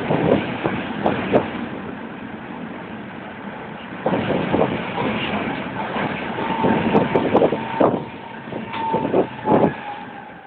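Tram running along the street, heard from on board: rumble and repeated clatter of the wheels on the rails, with a steady whine in the second half.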